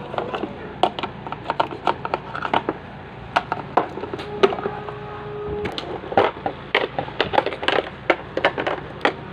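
Irregular clicks and knocks of hard plastic as a hand handles a toy car, turning its wheel and pressing at its dashboard. A short steady tone sounds a little before the middle.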